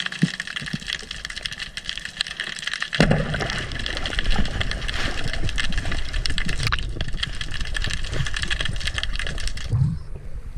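Underwater sound through an action camera: a dense crackling hiss, then from about three seconds in a loud low rush of water as the diver swims up toward the surface. The crackle drops away near the end as the camera breaks the surface.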